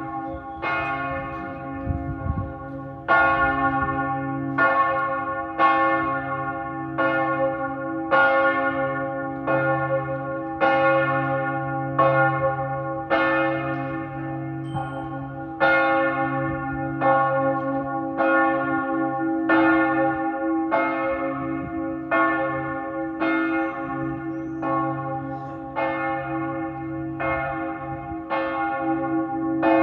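The bells of St Mark's ringing a peal: heavy church bells struck over and over, roughly one to two strokes a second. Each stroke rings on and overlaps the next, over a steady low hum.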